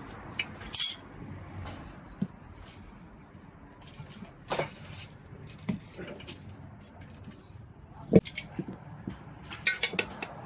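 Irregular metal clinks and knocks of tools against a tricycle's steel wheel rim as a tire is levered onto it, a few scattered strikes with a quick cluster near the end.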